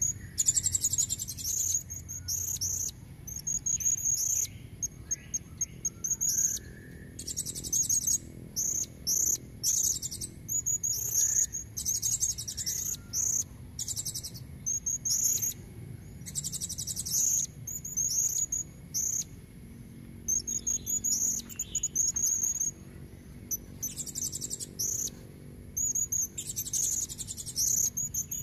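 Female blue-crowned hanging parrot (serindit) calling: bursts of very high, rapid, buzzy trilling notes, each about half a second to a second long, repeated every one to two seconds.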